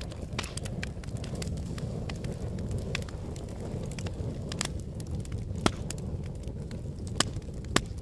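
Wood fire in a fireplace crackling and popping, with a steady low rush of burning flames under many small sharp crackles and three louder snaps in the second half.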